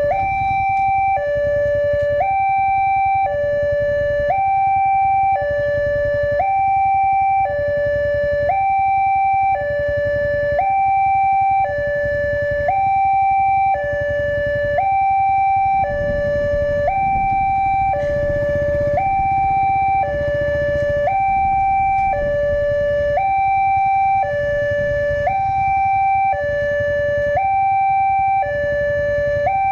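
Railway level-crossing warning alarm: an electronic two-tone signal that alternates steadily between a higher and a lower tone, each held about a second, warning that a train is approaching. A low engine rumble from the waiting motorcycles runs underneath.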